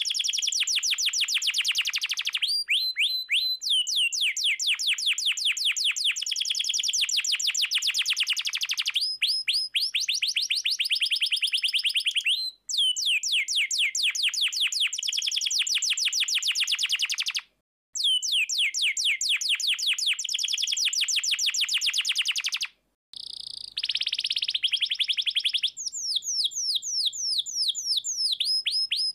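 Domestic canary singing: long, fast trills of repeated downward-sweeping notes, changing from one rolling phrase to the next, broken by a few brief sudden breaks.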